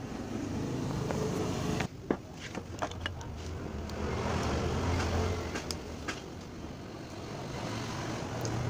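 Steady low rumble like passing road traffic, swelling for a couple of seconds mid-way, with a cluster of light clicks and taps about two seconds in and two more near six seconds, as tools are handled during soldering work on a TV circuit board.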